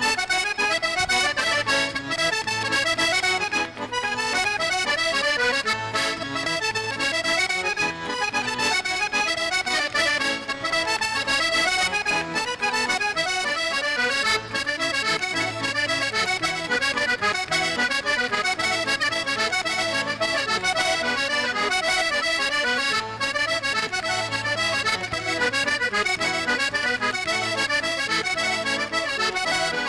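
Maugein Frères chromatic button accordion played solo: a quick, busy melody of many short notes over held bass notes.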